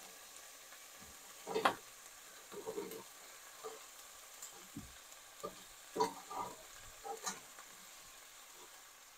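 Pieces of fried chicken being dropped by hand into a steel pot of vegetables cooking on the stove, with scattered light knocks and clinks against the pot and wire rack over a faint, steady sizzle.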